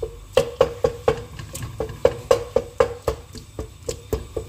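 Wooden spatula knocking and scraping against the sides of an aluminium pressure cooker while minced meat is stir-fried. The knocks come about four a second, each leaving the pot ringing briefly.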